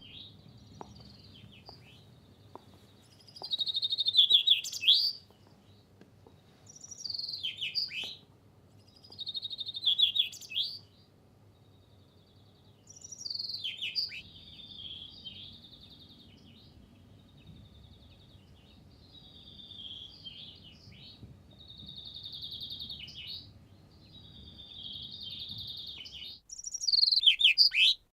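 Caged chaffinch singing: repeated song phrases a second or two long, each a quick run of high notes, several ending in a loud falling flourish, with softer phrases in between.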